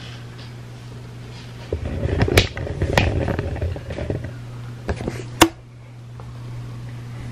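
Rustling and knocking from a handheld camera being moved about, with a few sharp clicks, the loudest about five and a half seconds in, over a steady low hum.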